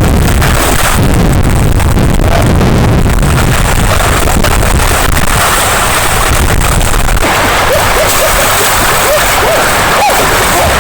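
Wind rumbling on the microphone beside a river, giving way about seven seconds in to splashing, running water with a run of short high chirps near the end.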